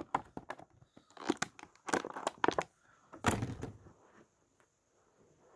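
Clear plastic accessory packet crinkling and being torn open by hand, in three short bursts of crackling, with a quiet spell near the end.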